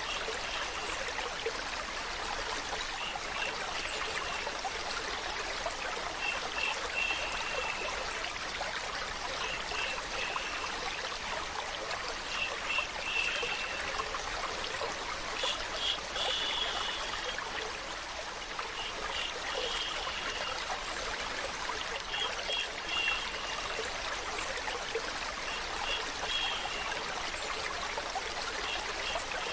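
Stream water running steadily, an even rushing trickle, with short high-pitched notes repeating about every three seconds.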